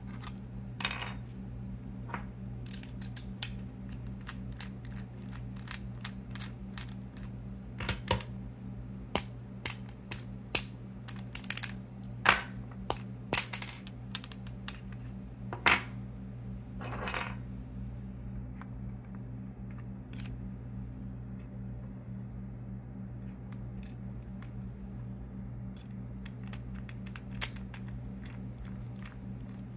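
Light clicks and knocks of 3D-printed plastic parts being unscrewed, handled and set down on a wooden desk, thick in the first half and thinning out after, over a steady low hum.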